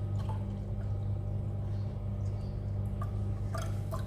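Blended juice trickling faintly as it is poured through a metal sieve into a glass, over a steady low hum. A few light clicks come near the end.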